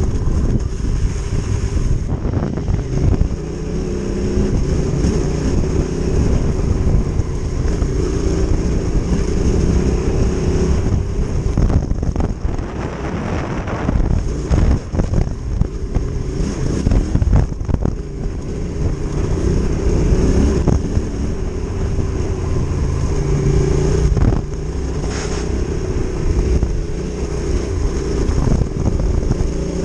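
Adventure motorcycle engine running as the bike rides a loose gravel trail; the sound swells and eases, with now and then a short knock.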